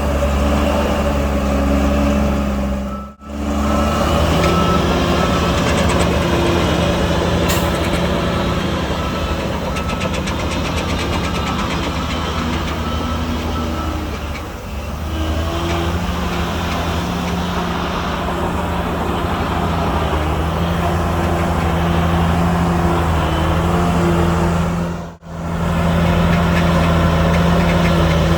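Heavy diesel engine of earthmoving machinery running steadily at a loud level. The sound cuts out abruptly twice, about three seconds in and near the end.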